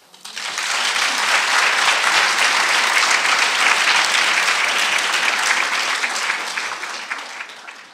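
An audience applauding: dense clapping that builds within the first half second, holds steady, and tapers off over the last couple of seconds.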